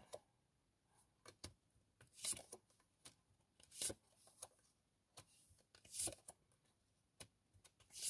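Tarot cards being handled and shuffled: a series of short, faint papery swishes at irregular intervals, about one every second.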